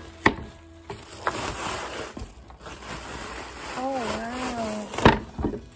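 Bubble wrap crinkling and rustling as it is pulled off a packed item, with a few sharp clicks, the loudest near the end. About four seconds in, a short hummed voice.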